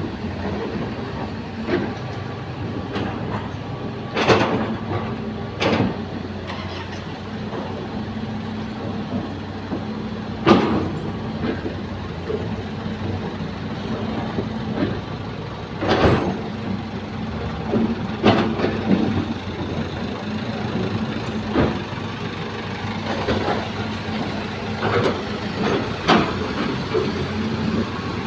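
Hitachi hydraulic excavator's diesel engine running steadily under load while it loads soil into a dump truck, with about ten sharp clanks and thuds scattered through, the loudest about ten seconds in.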